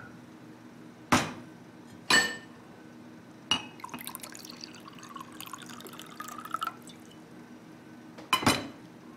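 A few sharp glass clinks, then liquid poured from a glass bottle into a drinking glass, the pitch of the pour rising as the glass fills. The glass bottle knocks down on the table near the end.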